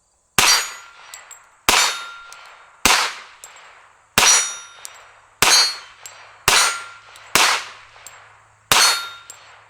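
Eight 10mm shots from a Hi-Point carbine, fired about one every second or so, each with the clang of the bullet hitting a steel target that rings on briefly after every hit.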